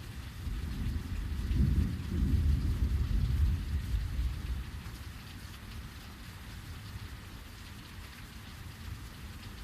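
Heavy rain falling steadily, with a deep roll of thunder that swells about half a second in, rumbles for a few seconds and dies away.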